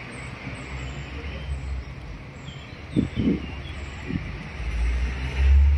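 Outdoor street-side ambience: a steady low rumble that swells near the end, under high, rapidly repeated bird chirps, with a brief louder sound about three seconds in.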